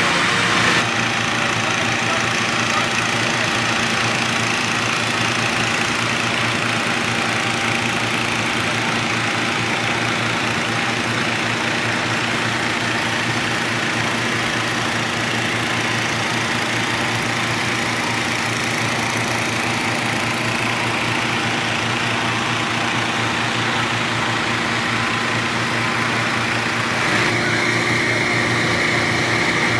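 Hot air balloon inflator fans running steadily: an engine hum under a rush of air as they cold-inflate the envelopes. The mix shifts slightly about a second in and again near the end.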